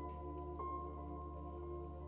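Soft ambient meditation music: a steady low drone under held tones, with two bell-like strikes, one at the start and one about half a second in, each ringing on.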